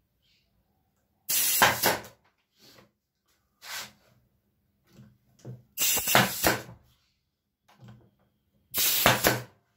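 Einhell pneumatic brad nailer firing three times, a few seconds apart, each shot a sharp crack with a short rush of air hiss as it drives a nail through a wooden edge strip into a pine frame. A softer knock comes between the first two shots.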